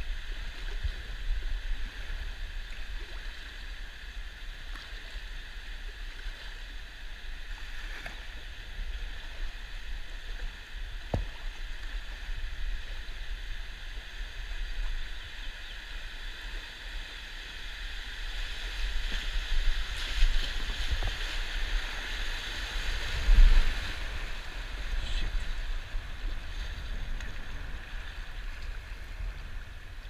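Class I–II river rapids rushing and splashing as a kayak runs through them, the water growing louder about two-thirds of the way through. A steady low rumble sits underneath, and there is one dull thump near the end.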